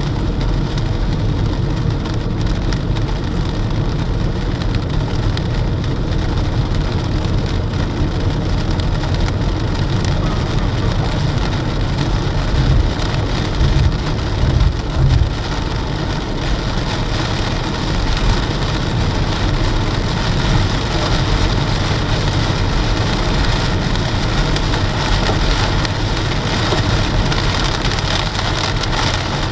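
Heavy rain on a car driving along a highway, mixed with steady road and engine noise; a few louder low rumbles come partway through.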